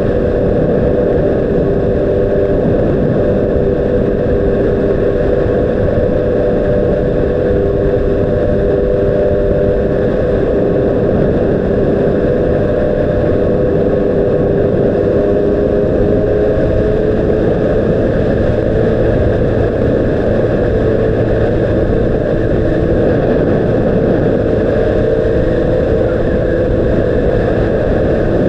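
Honda CBR600RR's inline-four engine running at a steady cruise, its note holding nearly constant with slight drifts in pitch, over a dense low rumble.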